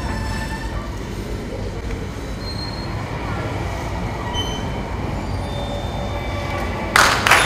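Stage sound-effect soundscape: a steady low rumble with faint, scattered high squealing tones. Applause breaks out suddenly about seven seconds in.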